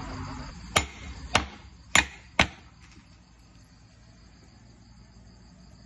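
Steel cleaver chopping garlic cloves on a thick round wooden chopping board: four sharp strikes about half a second apart, ending about two and a half seconds in.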